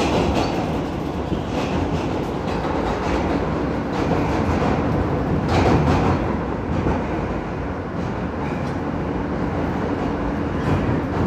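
R160 subway car running at speed, heard from inside: a steady rumble of steel wheels on rail, with a few sharp clicks over rail joints.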